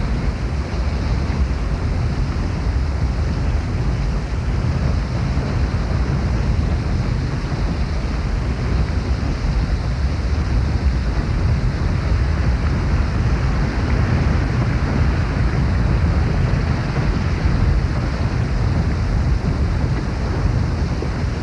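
Steady rush of a large waterfall, an unbroken wash of noise heaviest in the low end.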